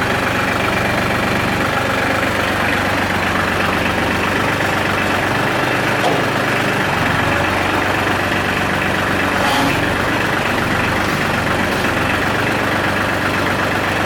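The New Holland TC33DA compact tractor's three-cylinder diesel engine runs steadily, with a couple of faint clicks about ten and twelve seconds in.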